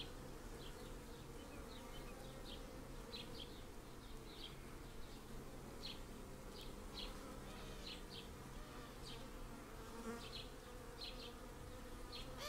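A cluster of honeybees hanging in chains to build comb (festooning), buzzing in a steady, even hum.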